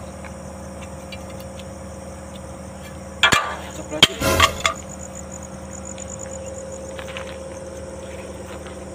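A thrown object hitting something hard: two sharp knocks about a second apart, each with a short scraping clatter, a little over three seconds in. Crickets chirp faintly and steadily in the background.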